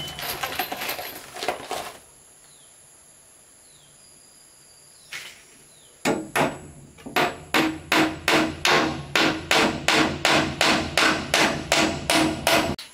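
Hammer blows on wood. There is a cluster of knocks at first, a single blow a few seconds later, then a steady run of about three blows a second from about six seconds in, each with a short ring.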